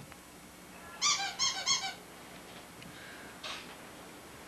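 A rubber squeaky toy squeezed in a quick run of four short, high squeaks about a second in, then a fainter single squeak a little past the middle.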